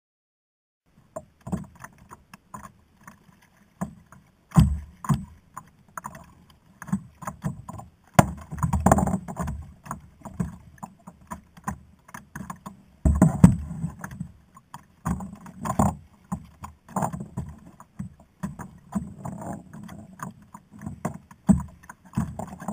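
Irregular knocks, clicks and rattles on a plastic sit-on-top fishing kayak as gear is handled, over a low rumbling buffeting and water moving against the hull. It starts about a second in.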